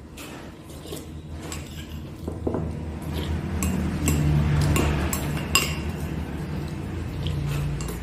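Metal spoon clinking against a small ceramic bowl while eating, in a scattering of separate sharp clinks over a low steady hum.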